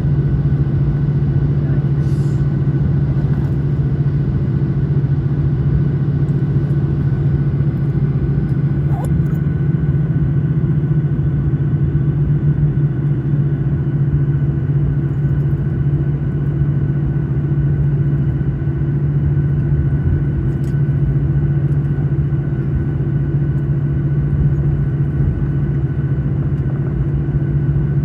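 Cabin noise of a Boeing 737-900 taxiing, its CFM56-7B turbofan engines at idle: a steady low hum with a few held tones over an even rush.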